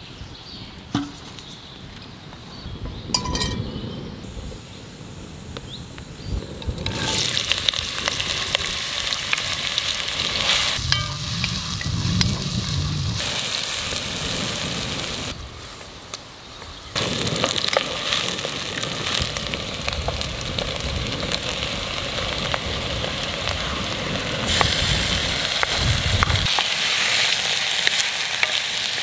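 Chopped onions frying and sizzling in oil in a pot over a wood fire, stirred with a wooden spatula; diced meat is then stirred in with them. The sizzle starts loudly about a quarter of the way in, after a quieter opening.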